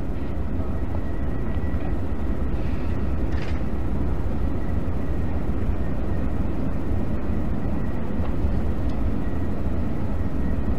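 Steady low rumble of room background noise with a faint, thin high tone running through it, and a couple of faint ticks.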